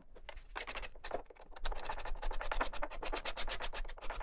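Steel card scraper scraping the end grain of a glued-up walnut cutting board to level it: quick, even scratching strokes that start about a second and a half in and come several per second.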